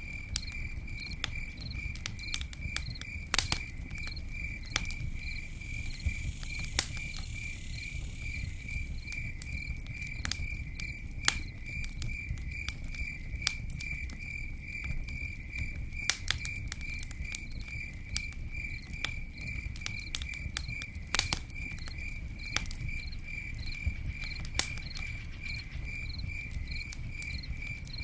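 Campfire crackling with irregular sharp pops over a low steady rumble, while an insect, likely a cricket, chirps steadily in the background at about three to four chirps a second.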